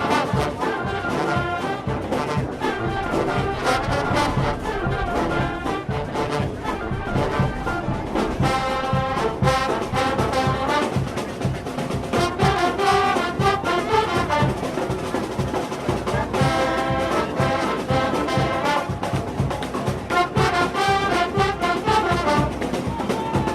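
Music led by brass instruments: trombones and trumpets playing melodic lines over a steady rhythmic accompaniment.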